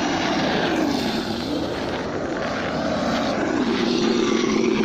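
Simulated engine note from a Sense ESS One Plus sound module on a Losi Baja Rey RC truck, played through its speaker while the truck drives. The pitch rises and falls with the throttle.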